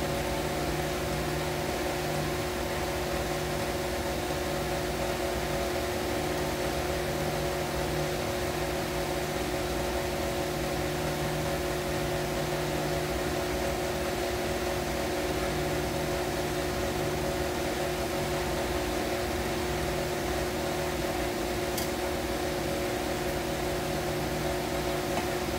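Tilt-head stand mixer running at its lowest (stir) speed, mixing eggs into creamed butter and sugar: a steady, even motor hum. A faint tick sounds once near the end.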